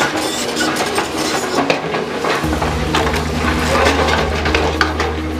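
Tracked excavator's bucket scraping through and tipping broken rock, with many sharp clinks and clatters of stones. The excavator's engine runs underneath, and a steady low engine hum comes up about halfway through.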